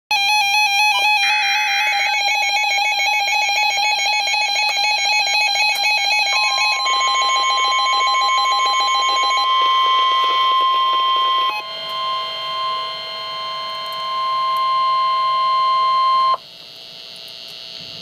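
NOAA Weather Radio receiver sounding its fast, repeating electronic alert beeps, with a short screeching burst of digital alert data about a second in. From about six seconds in, the broadcast's long, steady warning alarm tone plays for about ten seconds and cuts off abruptly, signalling a warning about to be read.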